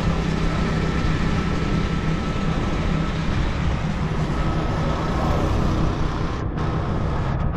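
Tuk-tuk riding along a road, heard from inside its open-sided passenger cab: a steady low drone with a faint steady high whine, over wind and road noise.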